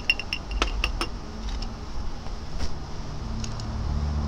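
Metal cocktail pick clinking against glass while cherries are skewered: several light ringing clinks in the first second, then a few faint ticks. A low steady hum comes in near the end.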